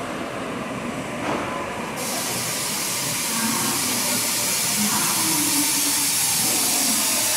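Tokyu Ikegami Line electric train pulling in along an underground station platform and slowing to a stop, with a low running rumble. About two seconds in, a steady hiss comes in suddenly and continues.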